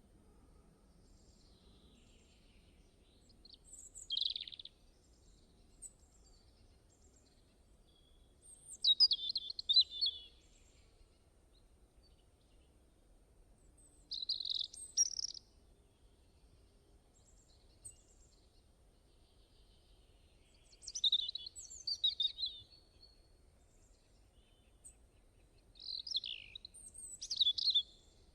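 Birdsong: five short phrases of high chirping and twittering, about five to six seconds apart, with quiet in between.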